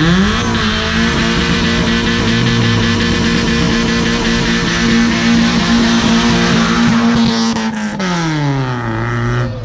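A Mazda MX-5's engine revs up and is held at steady high revs while its rear tyres spin in a smoky burnout, with a loud hiss from the spinning tyres. Near the end the revs fall away as the car pulls off.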